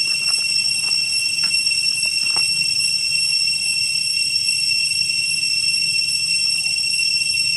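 Steady, shrill high-pitched drone of a cicada chorus. Faint rustles and clicks of a small monkey stepping on dry fallen leaves come in the first couple of seconds.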